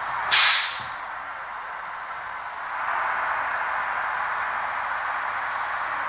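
Bus-driving video game audio: a steady drone of bus engine and road noise, with a short, loud noisy burst about a third of a second in.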